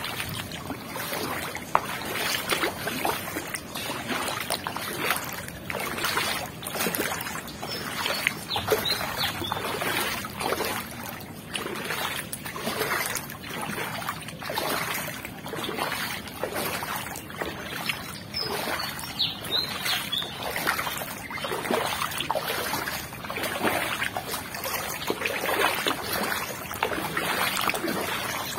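Footsteps wading through shallow floodwater, a splash with each step about once a second.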